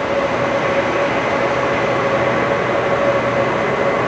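Steady Moscow metro noise: an even rush with a constant mid-pitched hum running through it, unchanging throughout.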